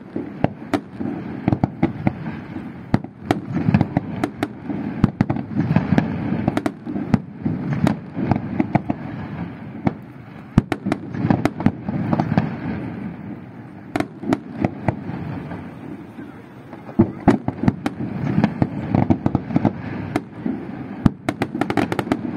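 Fireworks display: aerial shells bursting and crackling. Sharp bangs and crackles come several times a second over a continuous rumble.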